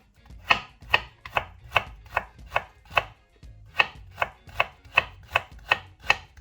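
Kitchen knife cutting through stacked thin carrot slices onto a cutting board, shredding them into fine strips: about fourteen sharp, even strokes at roughly two and a half a second, with a brief pause about three seconds in.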